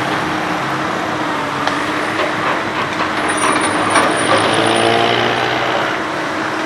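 Komatsu PC200 hydraulic excavator's diesel engine running steadily while it works, its pitch shifting briefly about four seconds in, with a few light knocks.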